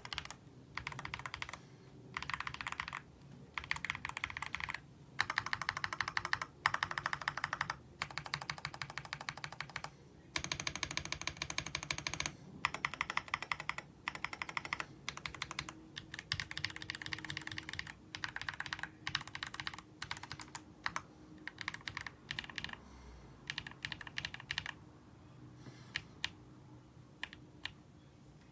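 Typing on a Womier SK71 mechanical keyboard with pre-lubed linear switches: rapid keystroke clicks in bursts of a second or two with short pauses between them, thinning to a few scattered single keypresses near the end.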